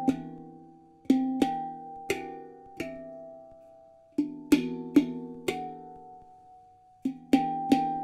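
Celestial Sound E Shahmaran 9 handpan (E Kurd/Aeolian scale, nitrided DC04 steel) played with the hands. About three short phrases of three or four struck notes each, every note ringing on and slowly fading, with brief pauses between phrases.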